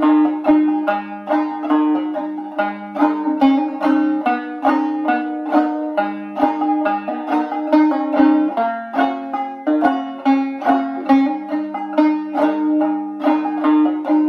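Five-string banjo in gDGCD (sawmill or mountain-minor) tuning, played solo as an old-time tune. It is an even run of plucked notes, several a second, over steadily ringing open drone strings.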